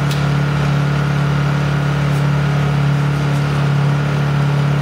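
Honda portable generator engine running steadily at full throttle, with one brief click just after the start.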